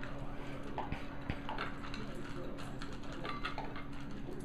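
Two corgis eating from metal bowls, with irregular clicks and clinks of food against the bowls and chewing.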